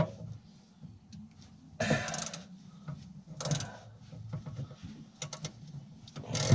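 Hand tools working the carburetor mounting bolts loose on a COOT UTV: scattered metal clicks, with two louder scraping bursts about two and three and a half seconds in.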